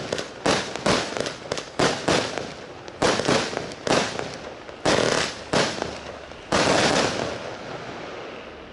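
A 100-shot firework barrage cake firing: sharp crackling bursts, about two a second at first, spacing out, then one last longer crackling burst about seven seconds in that dies away as the cake finishes.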